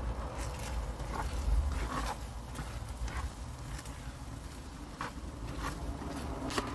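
A spoon stirring thick curry sauce in a frying pan, scraping and knocking against the pan at irregular moments, over a low steady rumble.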